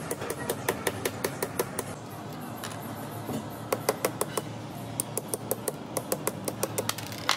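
Rapid light metal-on-metal tapping on a starter motor armature, in runs of about five or six taps a second with a pause near the middle, over a low steady hum.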